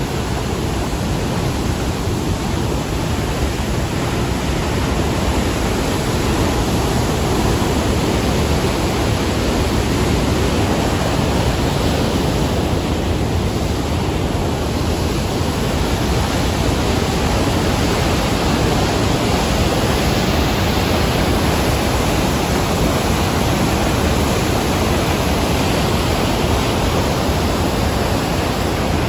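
Steady, loud rush of Rearguard Falls on the Fraser River: a huge volume of whitewater pouring over a low drop.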